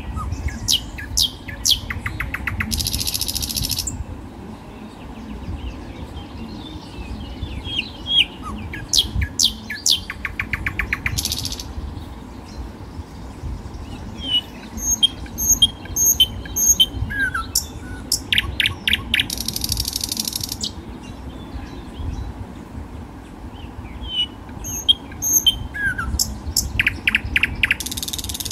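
Birds chirping. One song phrase of quick sweeping chirps, a fast trill and a short buzzy hiss comes back about every eight to nine seconds, over a low steady rumble.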